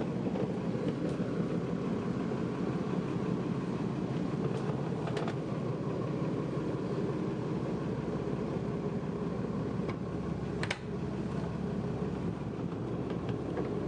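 The boat's twin Perkins diesel engines running at idle, a steady low rumble heard through the hull inside the cabin. Two light knocks come about five and eleven seconds in.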